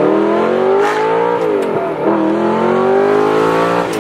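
Audi R8's V8 breathing through a loud titanium Armytrix aftermarket exhaust under acceleration, heard from inside the cabin with the windows down. The revs climb, drop with an upshift about a second and a half in, then climb again to another shift near the end.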